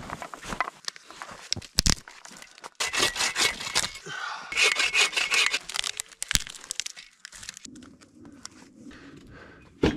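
Hand saw cutting dead conifer branches for firewood: two runs of quick back-and-forth strokes, with a couple of single sharp cracks of wood.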